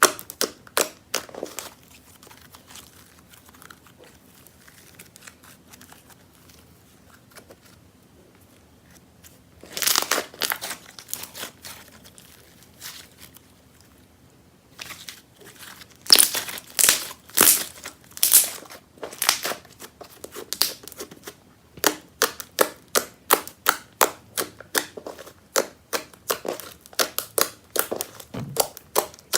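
Clear-glue glitter slime being kneaded and squeezed by hand, making runs of sticky clicks and pops, several a second. There are quieter lulls about two to nine seconds in and again around twelve to fifteen seconds, and the clicking is densest and loudest in the second half.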